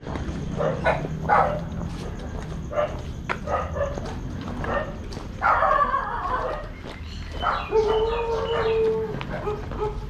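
A dog barking several times in short calls, then one longer held whining call near the end.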